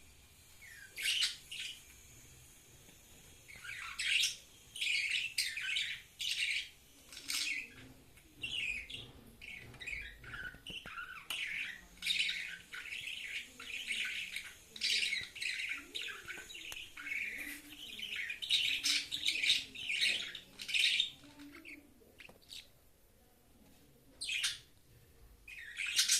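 Budgerigar chirping and chattering: runs of short, high chirps, with a couple of brief pauses.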